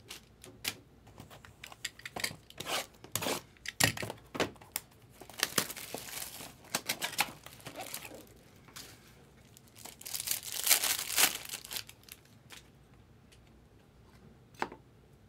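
Hands tearing open a sealed cardboard trading-card box, with crinkling wrapper and tearing cardboard in irregular bursts mixed with handling clicks. The loudest bursts come about halfway through and again near eleven seconds. It then goes quiet apart from a single sharp click of a plastic card case near the end.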